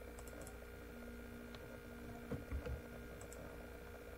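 A few faint, scattered clicks from a computer keyboard and mouse, over a steady low electrical hum.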